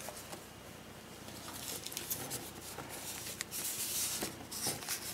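Stack of paper novelty banknotes rustling softly as a hand leafs through them, picking up a little after the first second or so.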